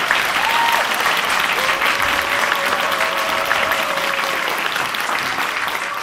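Audience applauding steadily after a song ends, thinning a little near the end.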